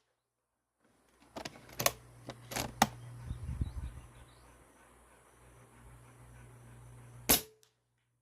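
A few sharp clicks as the Snowpeak T-Rex .22 PCP bullpup air rifle is cocked and loaded, then one loud air-rifle shot near the end.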